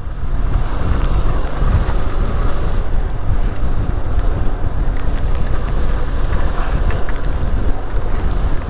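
Heavy wind buffeting the microphone of a moving motorcycle, with the Benelli TRK 502's parallel-twin engine running steadily underneath.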